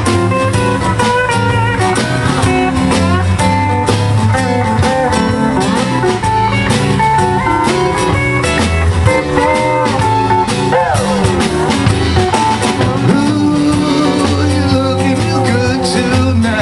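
Live blues band playing an instrumental break: electric guitar and steel guitar over bass and drum kit, with bending, sliding notes about halfway through.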